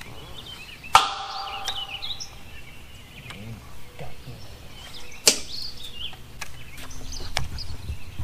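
A cast with a fishing rod: a sharp click, then the reel's spool whirring briefly as line pays out, and another sharp click about five seconds in. Birds chirp throughout.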